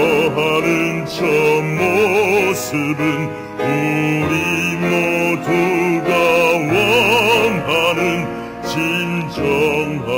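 Male voice singing a slow show tune in Korean, in several phrases with a wide vibrato, over sustained instrumental accompaniment.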